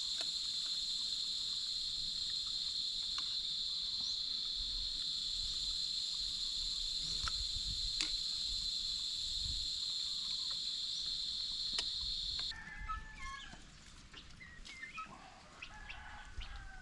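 A steady, high-pitched insect chorus drones without a break, then cuts off abruptly about three-quarters of the way through. After it, chickens cluck and call intermittently.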